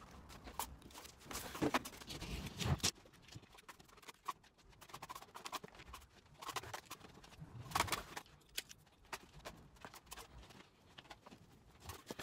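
Irregular knocks, taps and light scraping from hand work fitting a perforated metal corner bead onto a plasterboard edge. The louder knocks fall in the first three seconds and again about eight seconds in.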